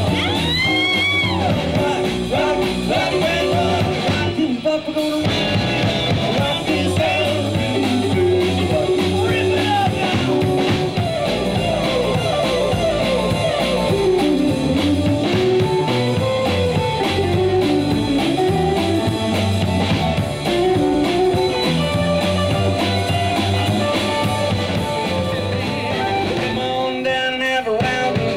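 Live band playing amplified electric guitar, bass guitar and drum kit, with a steady beat and guitar notes bending upward near the start.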